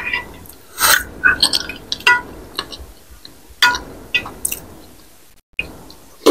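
Metal spoon and fork clinking and scraping against a glass bowl while cutting food in soupy broth, a string of sharp irregular clinks with small liquid sounds between them. A brief dead cut in the sound comes a little before the end.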